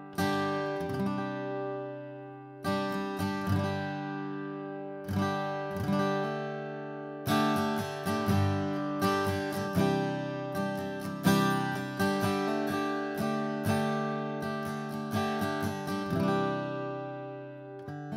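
Atkin Essential OM acoustic guitar played with a Hense Happy Turtle 1.2 mm pick. It opens with a few chords struck and left ringing, then from about seven seconds in moves to a quicker run of picked and strummed strokes.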